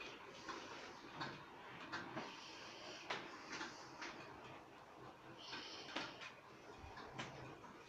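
Miniature model train running on the layout's track: faint, irregular clicks about once or twice a second over a steady hiss.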